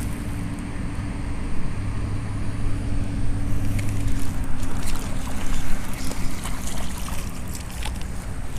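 A baitcasting reel being handled and worked, a run of small clicks and ticks from a few seconds in, over a steady low hum.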